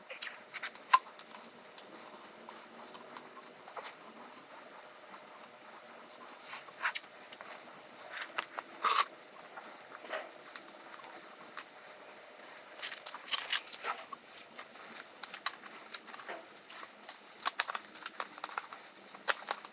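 Index cards and masking tape being worked around a wheel rim: a run of scattered light taps, crinkles and short tearing sounds as tape is pulled off the roll and cards are tucked into the rim's lip.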